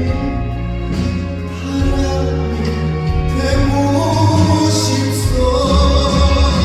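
Music: a slow ballad played by a backing band, with held bass notes under a sung melody.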